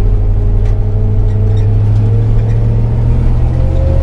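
Gasoline V8 engine of a New Holland TR70 combine running wide open while driving on the road in fourth gear: a loud, steady low drone.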